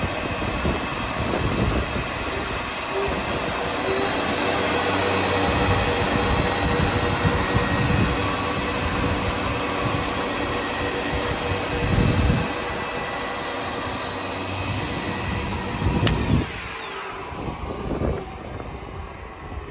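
Weinig Profimat 23E four-sided planer running, its cutter spindle motors giving a loud steady high whine over a few low knocks. About three-quarters of the way through, the machine is switched off and the whine falls away as the spindles spin down.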